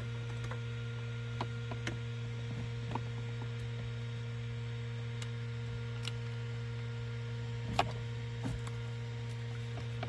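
Steady low electrical hum with a few small sharp clicks and snips from scissors cutting plastic zip ties, the loudest snip near the end.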